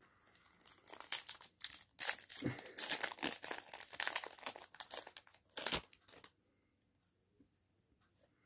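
Foil wrapper of a Yu-Gi-Oh booster pack crinkling and tearing open, a run of crackles that stops about six seconds in.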